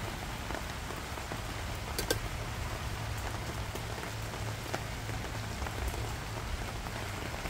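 Steady patter of rain, with a couple of light metal clicks from a spoon stirring in the frying pan about two seconds in.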